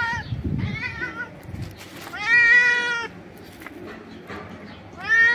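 Hungry stray domestic cat meowing loudly at the person who feeds it. A short meow comes about half a second in, a long loud one around two seconds in, and another starts near the end.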